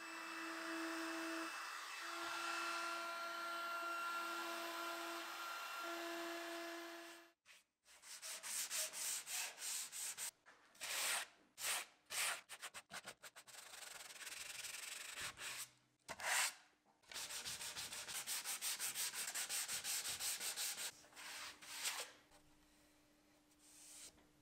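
Small trim router running with a steady high whine for about seven seconds as it trims the veneer overhang, then cutting off. After that, a hand sanding block rubs the wood-veneered edge in quick back-and-forth strokes.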